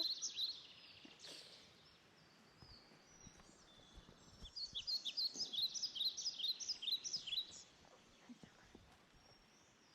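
A songbird singing rapid runs of short, high chirps: a brief burst at the start and a longer run of about three seconds midway, over a faint steady background hiss.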